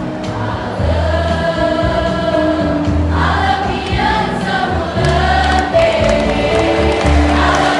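A choir singing a song with instrumental accompaniment: held, sustained sung notes over a steady line of low bass notes.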